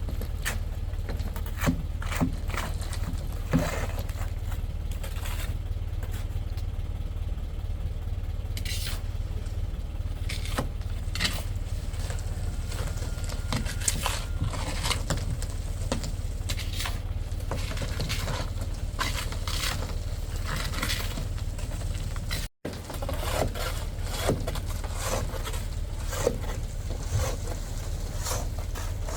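Excavator's diesel engine running steadily under load, with scraping, crunching and knocking of soil and stones as the bucket digs. The sound cuts out for a moment about two-thirds of the way through.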